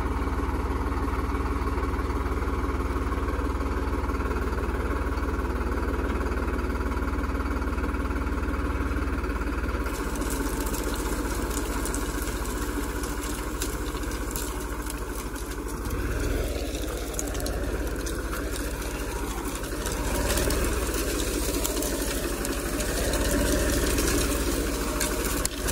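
New Holland 3630 tractor's three-cylinder diesel engine running steadily. About ten seconds in, a broad hiss joins it as the tractor starts pulling the plough through the soil, and past midway the engine's pitch sags and recovers a few times under the plough's load.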